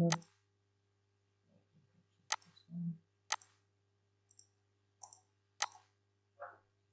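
Computer mouse button clicks: about four sharp single clicks, spaced irregularly a second or more apart, over a faint steady low hum.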